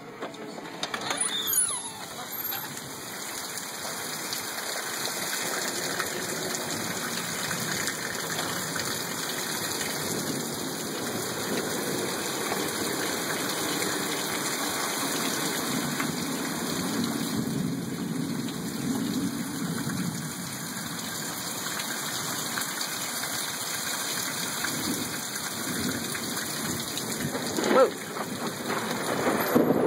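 Steady rain pouring down in a thunderstorm, with a sudden loud crack about a second and a half in and another near the end.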